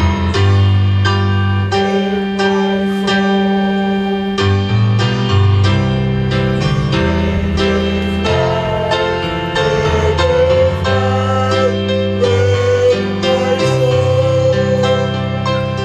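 Music: a slow song led by piano or keyboard over a sustained bass line, playing without a break.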